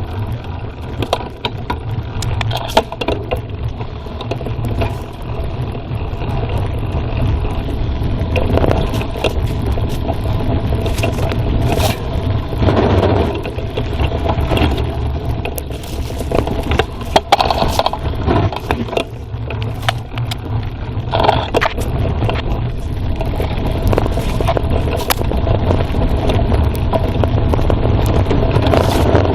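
Mountain bike riding down a forest trail, heard from a phone mounted on the bike: a steady low rumble of tyres over rough ground, with frequent sharp clicks and knocks as the bike rattles over bumps.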